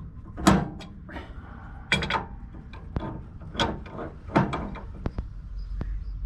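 Irregular metallic knocks and clanks of hand tools working on car front-suspension parts, about ten strikes at uneven intervals, the loudest about half a second in.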